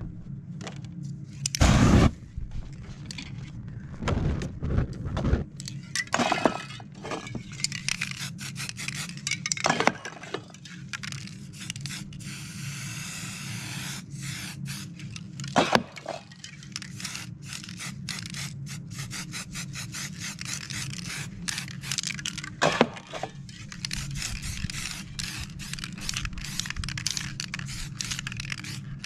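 Aerosol spray-paint can hissing in short bursts, with a longer spray about midway. Around it, crinkling, scraping and clicking as the wet paint is pressed and rubbed by hand, with a few louder knocks.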